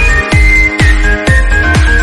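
Electronic background music with a steady, fast beat of low drum hits and a high synth melody moving in steps.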